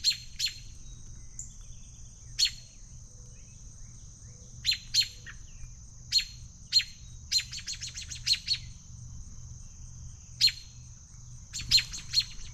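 American robin's sharp alarm calls, single notes and quick runs of several in a row: a nervous parent objecting to someone at its nest.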